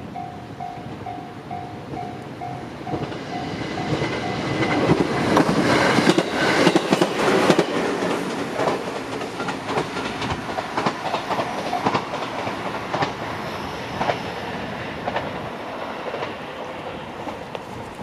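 Japanese level-crossing warning bell ringing in even pulses, about two and a half a second, heard until about four seconds in, as an electric train runs through the crossing. The train's wheels clack over the rail joints, loudest between about six and eight seconds in, then fade toward the end.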